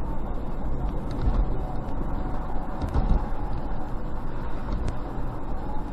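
Steady low rumble of a car driving, heard from inside the cabin: road, engine and gusting wind noise, with a few faint ticks.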